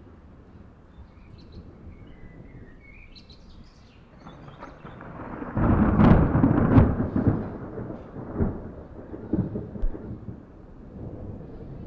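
Thunder: a low rumble builds about four seconds in, peaks with a crackling clap around six seconds, then rolls on in a few weaker swells that die away near the end.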